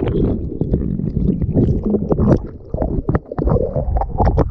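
Rough sea surging and splashing over a GoPro at the waterline: a dense rumble of churning white water and bubbles, broken by many sharp splashes.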